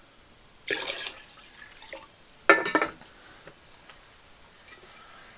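Water tipped out of an enamel mug in a short splash. About two seconds later comes a sharp clink of the enamel mug being set down, ringing briefly, followed by a few faint knocks.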